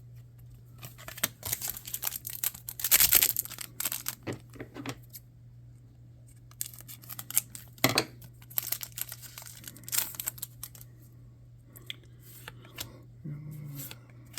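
Trading cards being handled: cards sliding and flicking against each other as they are shuffled through, in two runs of quick papery scrapes. A steady low hum sits underneath.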